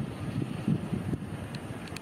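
Jet airliner at takeoff power on its wet takeoff roll: a deep, uneven rumble from the engines, with gusty wind buffeting the microphone.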